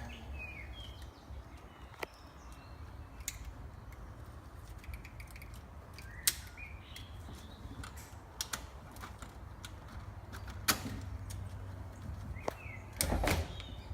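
Scattered sharp clicks and knocks of hands working on car parts, over a steady low hum, with a few short chirps.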